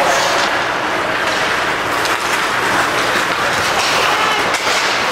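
Steady din of an ice hockey game in a rink: play on the ice and crowd noise blending into a continuous rush, with a few faint sharp clicks.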